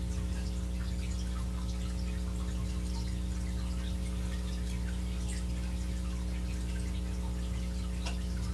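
A steady low electrical hum with faint scattered crackles and ticks over it.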